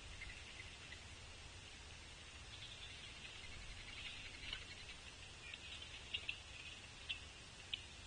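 Faint woodland ambience at the bird feeders: a soft, high-pitched chirring with scattered short, sharp chips and ticks, busier in the second half, over a steady low rumble.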